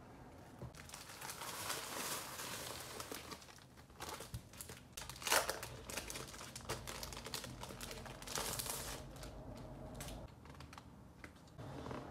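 Thin plastic mailer bag and plastic-wrapped poster pack being handled: irregular rustling and crinkling with quick small clicks, and one sharp crackle about five seconds in.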